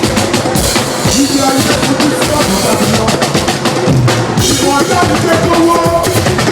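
Loud live music led by a drum kit playing a busy beat, with a steady run of quick drum strokes and some held melodic notes over them.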